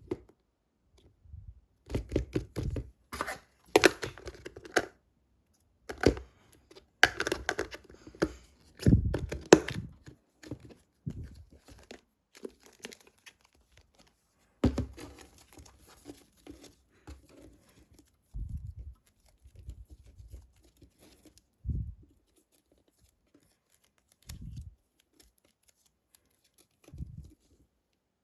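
Close-up handling noises: irregular crinkling and tearing in bursts, busiest in the first half, with a few short soft thumps later on.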